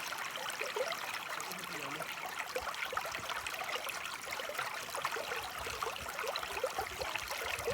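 Water of a small stream running and trickling over stones, a steady bubbling splash.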